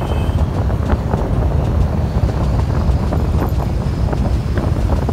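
Wind buffeting the microphone on a moving motor scooter, a steady low noise that covers everything else.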